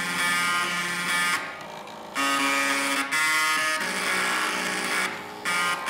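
Floppy disk drives' head stepper motors buzzing out musical notes, several drives at once sounding a melody with chords in a rough, electric-buzzer tone. The notes drop out for about half a second about a second and a half in, and briefly again near the end.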